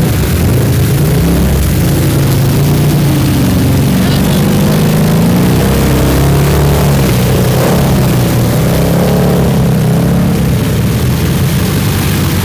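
ATV engine running and being revved, its pitch rising and falling, as the quad churns through deep mud.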